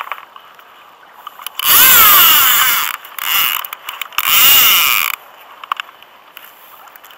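Fishing reel whirring in three bursts, two longer and one short, its pitch sweeping up and down, as a fish is brought in to the kayak.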